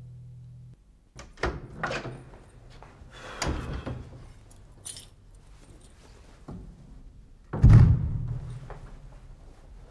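A wooden door being handled: several knocks and rattles, then the door pulled shut with a loud heavy thump nearly eight seconds in.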